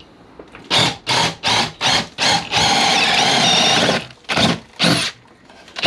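Cordless drill driver driving a screw up into a timber ceiling joist with its motor whining: about five quick pulses of the trigger, a longer run of about a second and a half near the middle, then two more short pulses.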